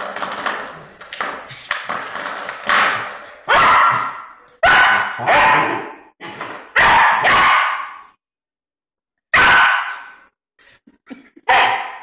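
Greyhound puppy barking in a series of loud, separate barks while playing with a spring door stop, with quieter scuffling and twanging of the door stop in the first few seconds.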